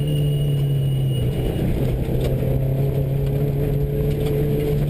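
Subaru rally car's flat-four engine running at a fairly steady speed, heard from inside the cabin, with tyre and gravel road noise underneath. The engine note dips briefly about a second and a half in, then holds steady again.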